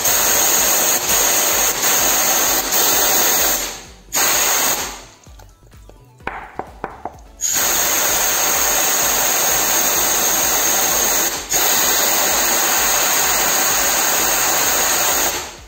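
Compressed-air blow gun hissing in long blasts against a motorcycle engine case, blowing gasoline and oil residue off the cleaned oil-seal bore. A first blast stops about four seconds in, a short one follows, then after a pause a long blast with a brief break near the middle runs until just before the end.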